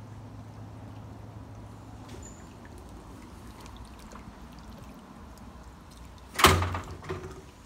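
A door bangs shut loudly, with a smaller knock following just after. A low steady hum is heard in the first couple of seconds.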